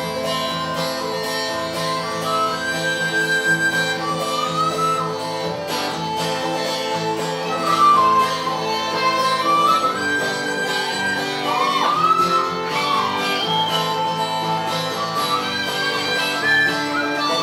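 Live Irish folk band playing an instrumental introduction: guitar chords under a lead melody line with sliding, bending notes.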